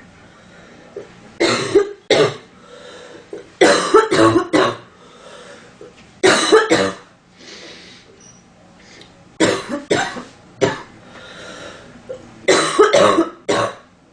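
A woman coughing in five short fits of two to four coughs each, a few seconds apart, with breaths between.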